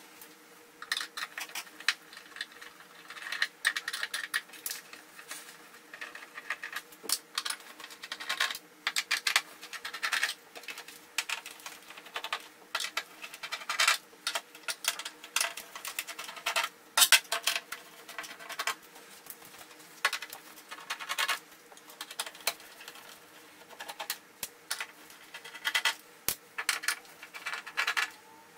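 Screwdriver backing screws out of a plastic TV back cover: irregular clusters of scratchy clicks and ticks, coming in short bursts every second or two.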